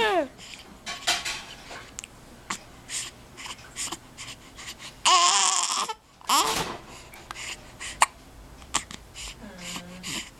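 Baby hiccupping over and over, short sharp hiccups about once a second, between fussy whining sounds; a louder cry comes about five seconds in. The parent takes the fussing for hunger.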